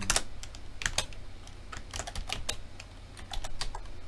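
Typing on a computer keyboard: irregular keystroke clicks in short bursts with brief pauses between them.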